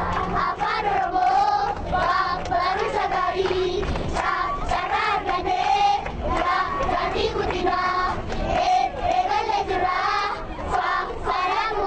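Crowd of children singing together in unison, a continuous song with a wavering melody, over a low rumble inside a crowded bus.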